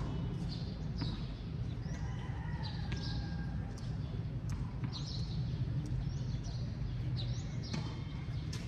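Tennis rally: sharp pops of racket strikes and ball bounces every second or so, over a steady low rumble, with faint high chirps.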